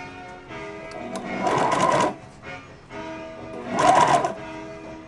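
Sewing machine stitching through vinyl upholstery in two short bursts, one about a second and a half in and another around four seconds, with background music throughout.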